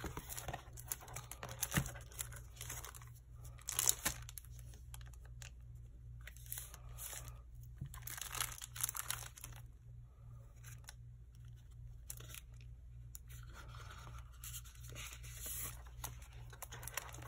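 Plastic-sleeved pages of a sticker storage album being flipped and sticker sheets handled: irregular crinkly rustling with a few sharper flaps and clicks, quieter for a few seconds in the middle.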